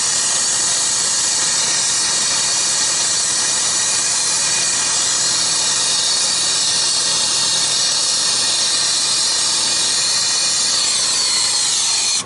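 Steady hissing roar of a turbo-tip torch flame heating copper refrigerant tubing. Near the end its pitch slides down and the sound stops.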